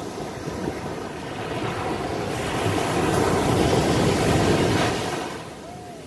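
Small waves breaking on a sandy beach and washing up the shore. The surf swells about two seconds in, is loudest a little past the middle, and falls away near the end.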